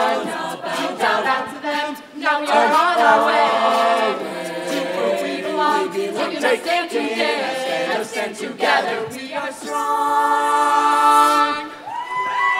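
An ensemble of voices singing a song together in harmony, ending on a long held chord about ten seconds in that breaks off just before the end.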